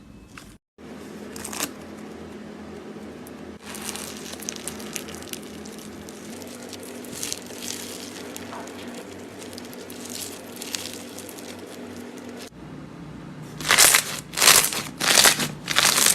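Slime being squeezed and pressed by hand, making crackling, crinkling squishes. Near the end come several much louder bursts of crackling.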